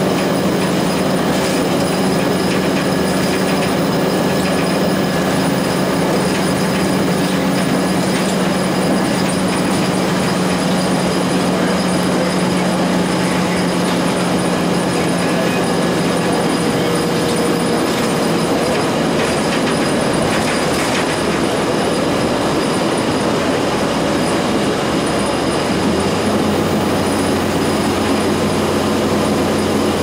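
Inside a 2002 Blue Bird CS transit bus cruising at highway speed: the Cummins ISC inline-six diesel runs at a steady drone over continuous road and tyre noise. The engine note shifts to a lower pitch a few seconds before the end.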